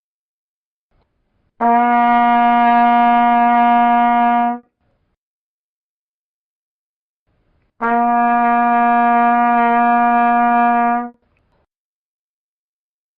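Trumpet playing two long held notes on the same steady pitch, each lasting about three seconds, with a pause of about three seconds between them.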